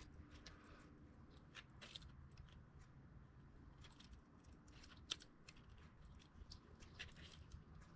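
Near silence with faint, scattered small clicks and light rustling as seatbelt webbing is fed through the retractor parts by hand.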